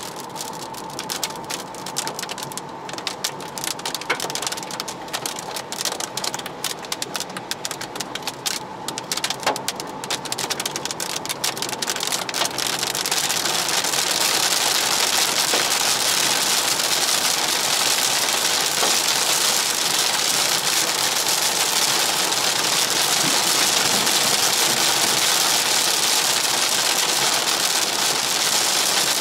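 Rain striking a car's roof and windscreen, heard from inside the cabin while driving: a patter of separate drops that, about halfway through, thickens into a steady, louder hiss of heavy rain.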